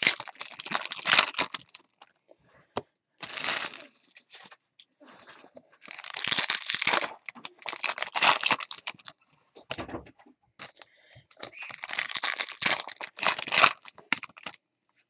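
Foil trading-card pack wrappers being torn open and crinkled by hand, in several bursts of crackling rustle a few seconds apart.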